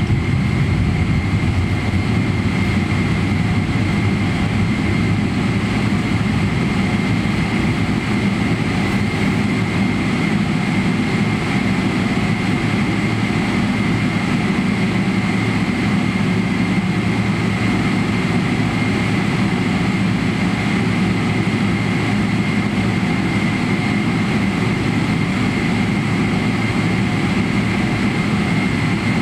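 Boeing 777-300ER's GE90-115B turbofans running steadily as the airliner taxis, heard inside the cabin: a low rumble with a constant high whine.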